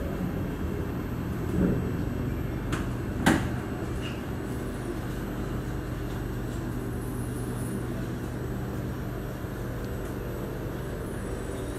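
Steady low rumble and hum of an MRT train running, heard from inside the carriage, with a sharp knock about three seconds in.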